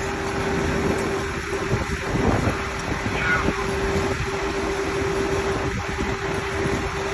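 Engine running steadily with a constant hum over a rough rumble, typical of a fire apparatus or rescue-tool power unit idling during a vehicle extrication.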